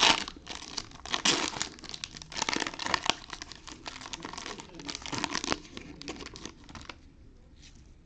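Foil trading-card pack wrapper being torn open and crinkled by hand, a dense run of crackling and tearing that dies down near the end.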